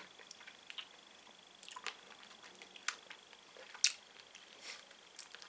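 Faint wet mouth clicks and smacks from sucking on sour hard candies, with a few sharper clicks, the loudest about four seconds in.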